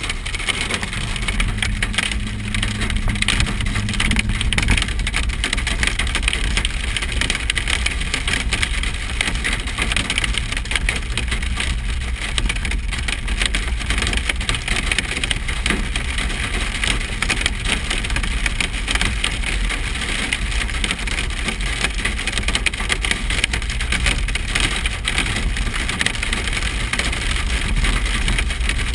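Hail pelting a car's roof and windshield in a dense, steady crackle of impacts, over the low rumble of the vehicle driving.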